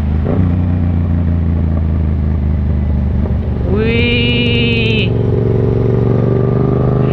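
Yamaha MT-07's 689 cc parallel-twin engine running steadily under the rider on the open road. About midway a separate pitched call is held for about a second.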